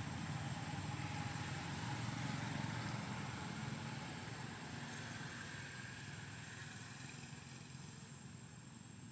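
Low engine hum of a motor vehicle, steady at first and then fading gradually as it moves away.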